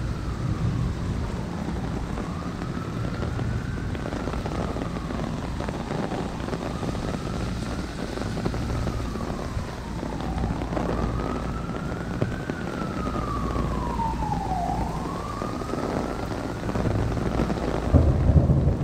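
An emergency-vehicle siren wailing, its pitch slowly rising and falling about every four seconds, over steady heavy rain hitting the street and the umbrella overhead. Near the end, a low thunder rumble starts to build.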